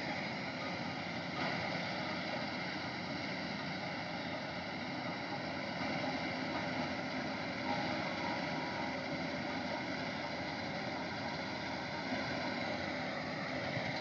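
Simran 676 self-propelled combine harvester running steadily as it cuts and threshes standing wheat: a continuous mechanical drone of engine and threshing machinery with faint steady whining tones.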